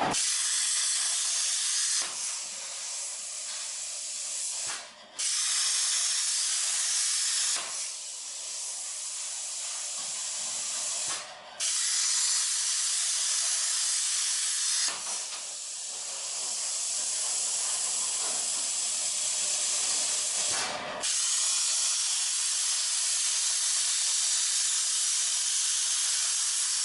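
Plasma cutting torch on a CNC plasma table hissing steadily and loudly, breaking off briefly a few times.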